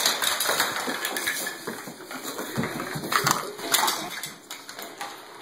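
Plastic toy food clattering and scattering across a wooden floor as a toddler slides into the pile and sweeps through it. Loud rattles come at the start and again a little past halfway.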